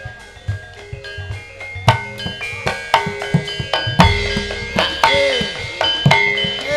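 Javanese gamelan playing tayub dance music, driven by hand-drum strokes over the ringing of bronze metallophones. Some low drum strokes bend downward in pitch. The playing grows louder, with a deep low stroke about four seconds in.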